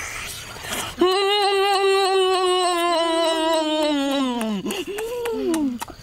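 A boy's voice holds one long hummed note for about three and a half seconds, wavering slightly and sliding down at the end, then gives a short note that rises and falls. Small clicks of chewing come before it.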